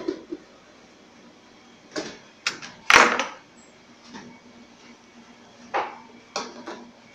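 A scattered series of sharp clacks and knocks from kitchen utensils and cookware being handled, about eight in all. The loudest and longest comes about three seconds in.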